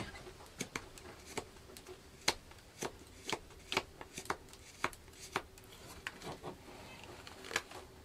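Mora Companion knife, freshly sharpened to a Scandi grind, taking short cross-grain carving cuts in seasoned yew: a crisp snick from each stroke, about two a second.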